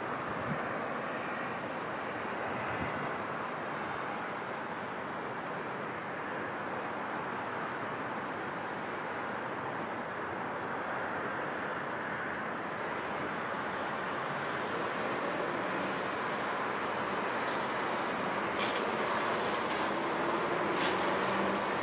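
Steady distant city traffic noise, a low even rumble and hiss that grows slightly louder towards the end. A few faint sharp clicks come near the end.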